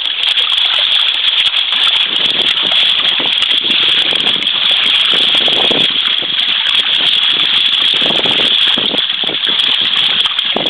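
Water rushing and splashing along the hull of a sailing kayak in irregular surges, over a steady high hiss.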